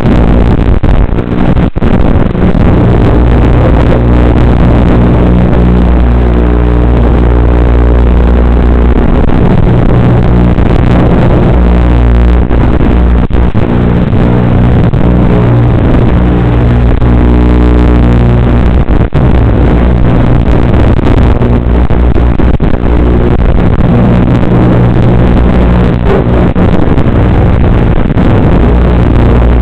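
FPV racing quadcopter's electric motors and propellers running loud, their pitch shifting up and down with the throttle.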